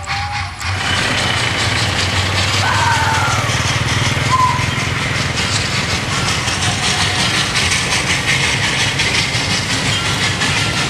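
Motor vehicle engine running close by, a steady low rumble with road noise that starts about a second in. Two short gliding squeaks come about three and four and a half seconds in.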